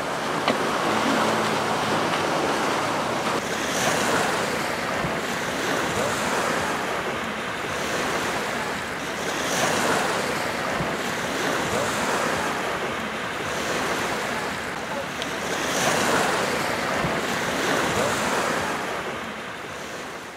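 Sea surf washing in, swelling about every six seconds, with wind noise on the microphone; the sound fades out near the end.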